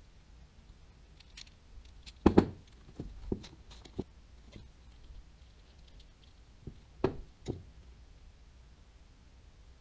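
Scattered clicks and knocks of a baitcasting reel and its small parts being handled and fitted together, the loudest about two seconds in and again about seven seconds in.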